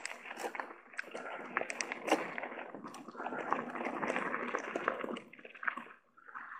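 Mountain bike rolling over a loose gravel trail: tyres crunching on stones and the bike rattling with many quick clicks, dropping away briefly about six seconds in.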